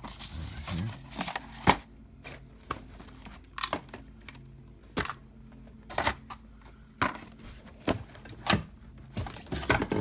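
Rummaging through cardboard boxes and plastic-packaged items: irregular knocks, clacks and rustles of packaging being shifted, roughly one every second.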